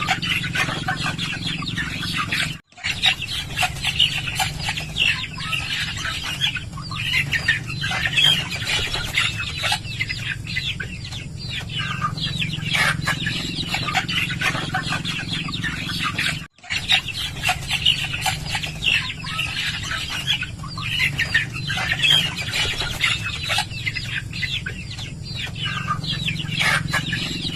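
A flock of chickens clucking, many short calls overlapping, over a steady low hum. The sound cuts out for a moment twice, once early and once about halfway through.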